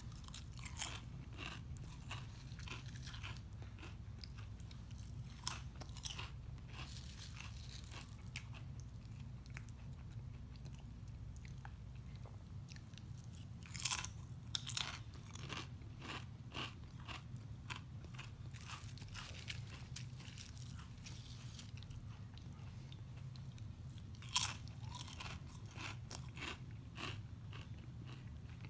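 A man chewing and crunching Quest protein chips close to the microphone: irregular crisp crunches between quieter chewing, with the loudest bites about halfway through and again near the end, over a low steady hum.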